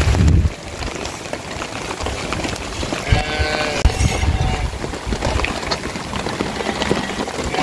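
A sheep bleats once, a wavering call about three seconds in that lasts about a second and a half, over steady rain. A low rumble dies away at the very start.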